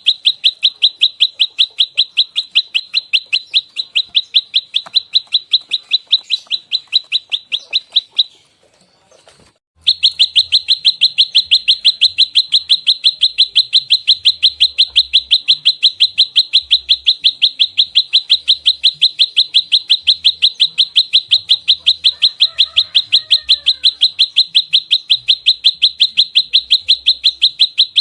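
Prenjak lumut fighting call: a rapid, even string of sharp high notes at about five a second, the tight 'nembak rapat' delivery used as lure and master audio. The string stops for about a second and a half some eight seconds in, then resumes unbroken.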